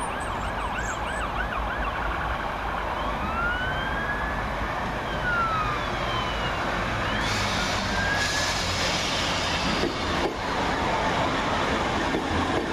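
A siren sounds, with a quick yelping pattern at first, then a slow wail rising and falling in pitch. Under it, a Class 319 electric multiple unit runs into the platform, and its wheel and running noise swells about seven seconds in as it passes.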